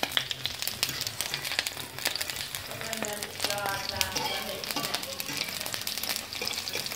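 Onion rings frying in hot grease in a cast-iron skillet: a steady sizzle with many small crackles and pops.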